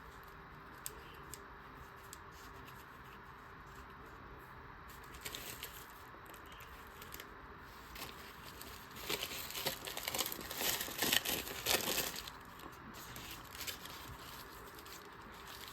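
Thin deli-paper print being handled and crinkled: light rustles, then a denser burst of crinkling about nine seconds in that lasts some three seconds.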